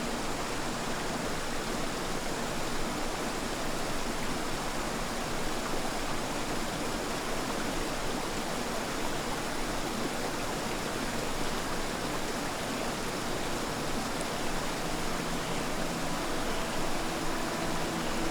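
Creek water rushing, a steady, even rush.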